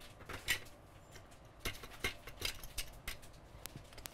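Light clicks, taps and short scratchy scrapes of small tools and parts handled on a workbench. There is a scrape about half a second in, a cluster of strokes in the middle, and a few sharp single clicks near the end.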